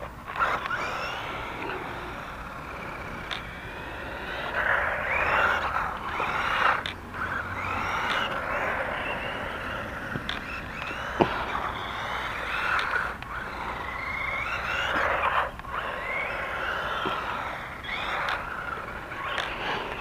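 GP Toys Rider 5, a 1:16 four-wheel-drive battery-electric RC car, driving on asphalt: its motor and gears whine, rising and falling in pitch again and again as the throttle is worked, with the tyres running over the pavement and a few short clicks.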